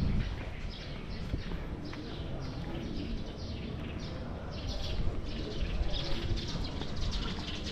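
Small birds chirping repeatedly over a steady low rumble of outdoor background noise.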